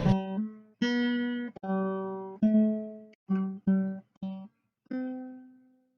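Acoustic guitar music: a slow phrase of about eight plucked notes, each ringing out and fading before the next.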